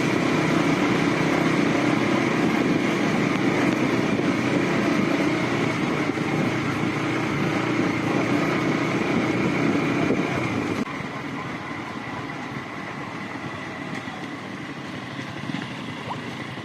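Yamaha MT-15's single-cylinder engine running steadily while riding, mixed with wind and road noise. About eleven seconds in it drops noticeably quieter and stays lower.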